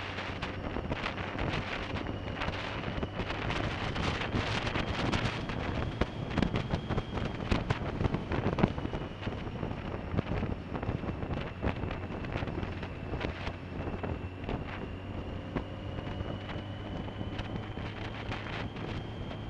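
Wind rushing and buffeting on an action camera's microphone on a moving motorcycle, with a 2005 BMW K1200S's inline-four engine running steadily underneath.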